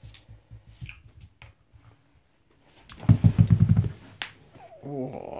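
Light clicks and taps on a vinyl floor as a Dogue de Bordeaux puppy moves about with her ball, then, about three seconds in, a loud second-long low rhythmic grumble from the puppy, followed by a single sharp click.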